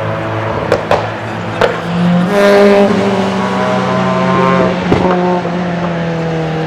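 Cars driven hard past the track: several engines are heard at once, and the loudest passes about two seconds in with its pitch falling gently as it slows. Sharp exhaust crackles sound about a second in and again near five seconds.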